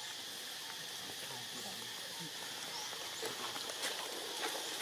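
Forest ambience: a steady high-pitched insect drone, with faint low calls from the macaque troop and a few light rustles in dry leaf litter near the end.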